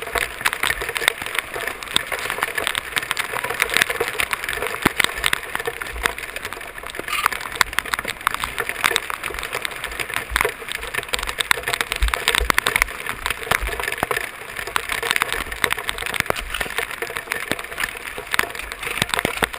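Monsoon downpour and flash-flood water running: a steady, dense hiss of pattering and splashing.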